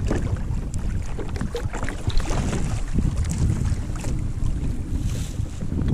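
Wind rumbling on an action camera's microphone over water sloshing around a kayak, with scattered small knocks and brief splashy hiss.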